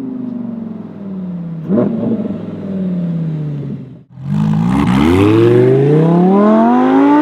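Lamborghini Huracan EVO's V10 engine and exhaust: revs falling off, with a sharp rev blip about two seconds in. After a brief drop-out about four seconds in, it pulls hard under acceleration, its pitch climbing steadily and loudly.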